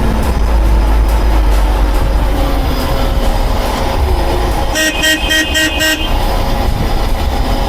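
The engine of a forked construction machine runs with a steady low rumble. About five seconds in, a rapid run of about six short beeps sounds.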